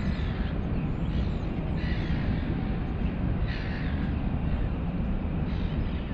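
A crow cawing four times, about two seconds apart, over a steady low rumble.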